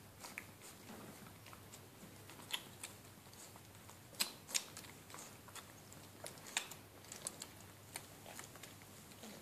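Newborn puppies nursing and squirming against their mother: faint wet suckling with scattered sharp smacking clicks, a few of them louder.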